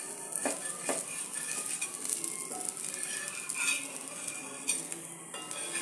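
Metal spatula scraping and tapping on a hot dosa pan while a millet dosa is lifted, with a faint sizzle underneath and a couple of sharp ticks in the first second.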